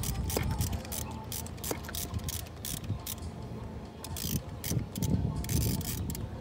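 Ratchet wrench clicking in quick runs as it turns a spark plug in a motorcycle's cylinder head, with a short pause about halfway.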